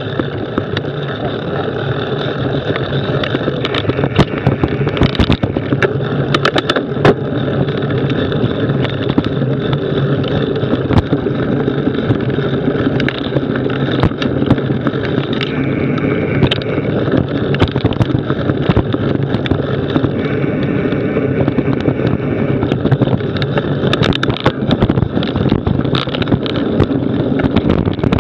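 Mountain bike riding along a rough dirt trail: knobby tyre rumbling over the ground, wind buffeting the camera's microphone, and frequent sharp knocks and rattles from bumps, over a steady low hum.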